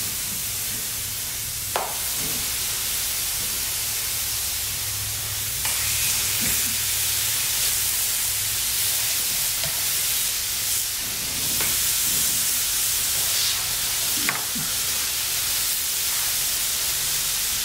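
Raw Wagyu beef patties sizzling as they are laid one after another into a hot steel discada. The frying hiss grows louder about six seconds in and again near twelve seconds as more patties go in, with a couple of light taps.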